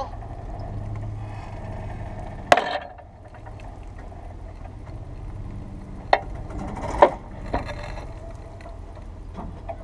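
A tow vehicle's engine running low and steady as it drags a Toro riding mower out of a pond on a heavy chain, with four sharp clanks of chain and mower, the loudest about two and a half seconds in and about seven seconds in.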